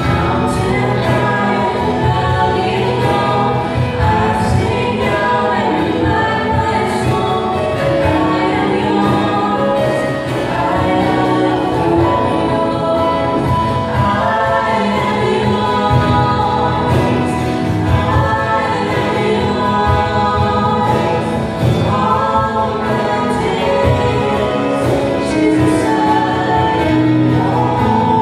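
Live worship song: several singers, men's and women's voices together, singing into microphones over an acoustic guitar accompaniment.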